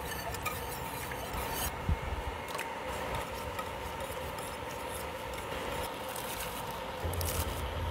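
Wire whisk scraping and rattling against the bottom and sides of a stainless steel saucepan, stirring milk into a butter-and-flour roux, with one sharper knock about two seconds in.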